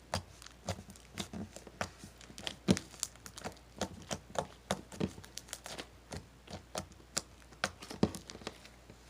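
Green glitter slime crackling as it is squeezed and pulled by hand: a quick, irregular run of sharp little clicks, several a second, with louder snaps about three seconds in and near the end.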